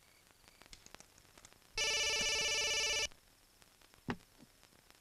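Phone ringtone: an electronic ring of many stacked steady tones, sounding twice, each ring about a second and a half long with a pause of about two seconds between them.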